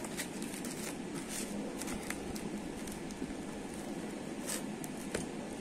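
Steady hiss of a room fan, with a few soft taps and rustles as a pizza slice is pulled from its cardboard box.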